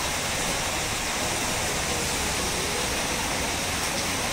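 Steady, even rushing hiss with no change throughout, and a faint scratch of a match being struck near the end.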